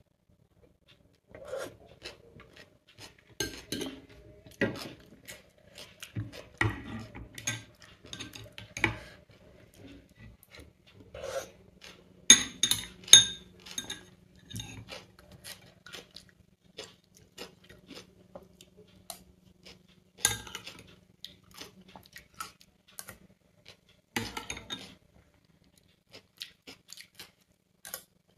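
Metal spoon scraping and clinking against a small glass bowl while scooping up raita, in irregular strokes, with a few sharper ringing clinks about twelve seconds in.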